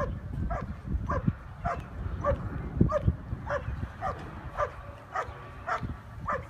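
German Shepherd barking steadily at the helper in the blind: the hold-and-bark of IPO protection work. A dozen short barks come evenly, just under two a second, each dropping slightly in pitch.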